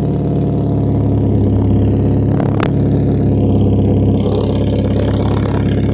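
Car engine running steadily with exhaust escaping through a small hole in the exhaust pipe; the leak is what makes this noise. A single sharp click about two and a half seconds in.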